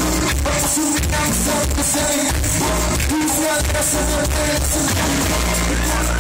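A live band playing loudly through a club PA during a sound check, with singing over the music.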